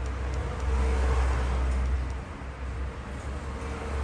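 Low rumble of a passing motor vehicle, swelling about a second in and fading after about two seconds.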